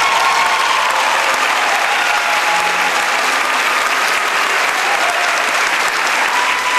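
Theatre audience applauding steadily at the close of a song, with a few voices calling out over the clapping.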